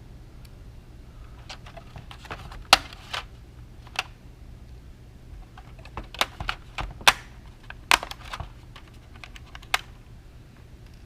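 Irregular sharp plastic clicks and snaps as small parts are lifted and popped out of a Honda Element instrument cluster, with lighter handling taps in between. The loudest snaps come at about three, seven, eight and ten seconds in.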